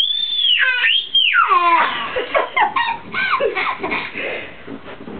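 Children's high-pitched screams: two long shrieks, each rising and falling, then several shorter squeals.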